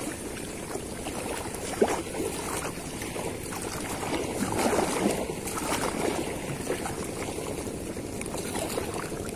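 Steady rushing wash of small waves on the shore, with one sharp tap about two seconds in.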